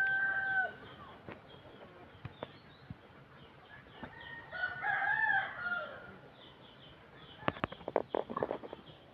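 A rooster crowing: the tail of one crow fades out just under a second in, and a second, wavering crow comes about four seconds in and lasts some two seconds. Faint high chirps run underneath, and a quick run of sharp clicks comes near the end.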